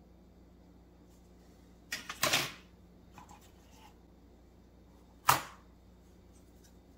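Hard plastic model-kit sprues being handled on a cutting mat: a short cluster of clacks about two seconds in as one sprue is set down, faint scuffing, then one sharp clack past the five-second mark as another sprue is picked up.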